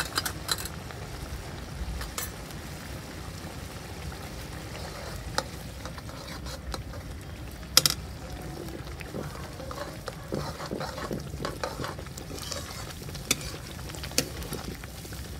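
Thick tomato-onion masala with freshly added ground spices sizzling and bubbling in a kadai while a metal spatula stirs it, scraping and knocking against the pan; the sharpest knock comes about eight seconds in.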